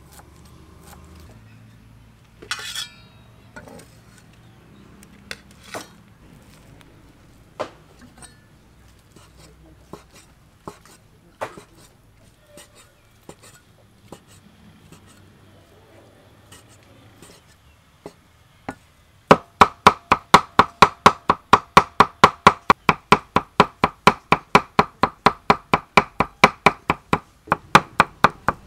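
Kitchen knife cutting on a thick round wooden chopping board: scattered single cuts at first, then, about two-thirds of the way through, a cleaver mincing mushrooms in fast, even chops about four a second, the loudest part.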